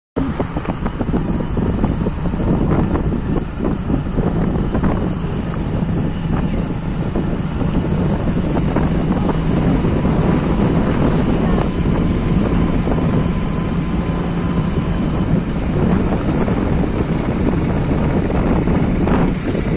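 A vehicle engine running steadily with a low, even hum, with wind rushing on the microphone.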